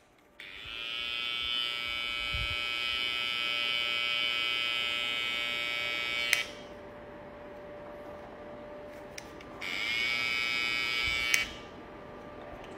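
Cordless hair trimmer with a T-blade buzzing while edging a mustache and chin, in two stretches of steady high buzzing separated by a quieter hum, each ending in a short click.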